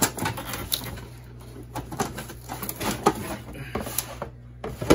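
Handling noise from unpacking a Marineland Penguin 350 hang-on-back filter: irregular clicks, taps and rustles of the plastic filter body against the cardboard box as it is pulled out. There is a sharp knock at the start and another near the end, over a steady low hum.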